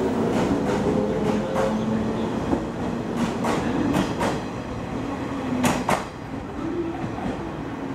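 JR 115-series electric train pulling out of the station past the platform, its wheels clicking over the rail joints in quick pairs under a low steady hum. The sound falls away once the last car has gone by, about six seconds in.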